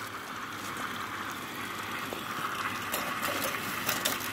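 Tap water rushing steadily through a water-jet aspirator into the sink, pulling a vacuum on the filtration flask. A few faint crinkles from the aluminium foil being wrapped come in the second half.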